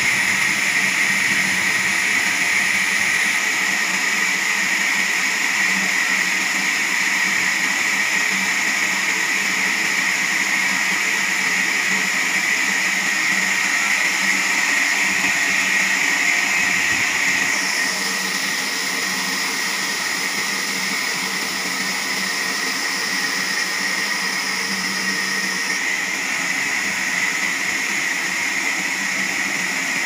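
Large horizontal band sawmill running steadily as its blade cuts lengthwise through a big log on the carriage, a continuous high-pitched mechanical sound. About 17 to 18 seconds in, its pitch shifts and it gets slightly quieter.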